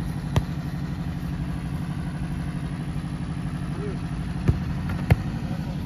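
A steady low drone with a fast, even pulse, like an idling engine, runs throughout. Over it come three sharp knocks of a football being kicked: one about half a second in and two close together near the end.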